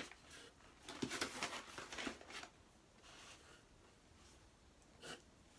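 Soft rustling and handling noises from a parcel of food being unpacked: a few light rustles and knocks in the first couple of seconds, and one click near the end.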